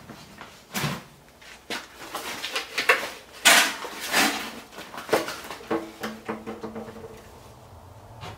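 Knocks, clunks and rustling of plastic cans, jugs and other gear being lifted and set down on a concrete floor as a generator is uncovered, with a short drawn-out squeak about six seconds in.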